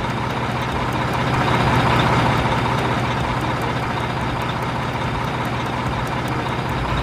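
Mobile crane's diesel engine running steadily at a low idle-like drone.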